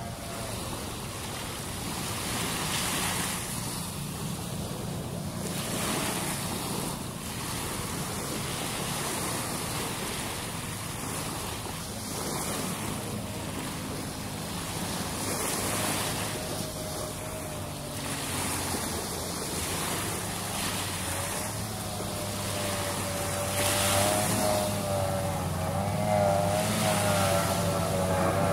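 Small sea waves washing in with a swell every few seconds, under the steady drone of distant racing powerboat engines. Near the end one race boat's engine grows louder, its note wavering up and down as it approaches.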